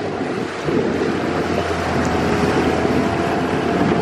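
A boat's motor running steadily with a low hum under the rush of wind on the microphone, a little louder from under a second in.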